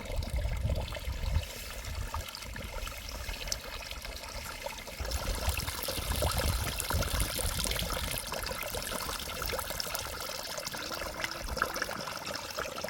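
Water running and trickling steadily, a continuous noisy hiss.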